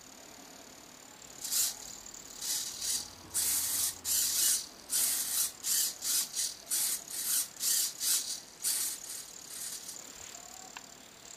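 Two small 9g hobby servos driving the throttle and choke linkages of a 43cc chainsaw engine, stepping back and forth together. They make a run of short, high-pitched buzzing whirs, about two a second, starting about a second and a half in and stopping near the end.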